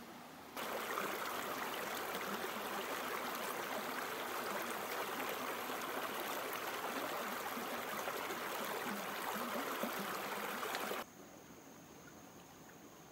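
Shallow stream running over rocks: a steady rush of water that starts suddenly about half a second in and cuts off abruptly near the end. After it comes a much quieter stretch with a faint, steady high-pitched whine.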